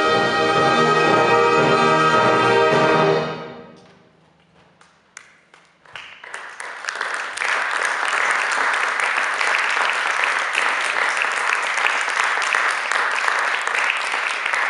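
Wind band of brass, woodwinds and percussion holding its closing chord, which is released about three seconds in and rings away in the hall. After a moment of quiet, a few scattered claps, then the audience breaks into steady applause.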